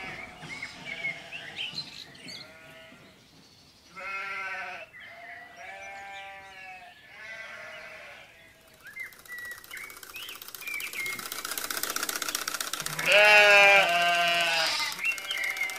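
Sheep bleating: several wavering bleats, the loudest about two-thirds of the way through, with short high chirps around them. A steady hiss comes up about halfway through.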